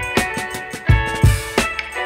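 Background music with a steady drum beat under held melodic notes.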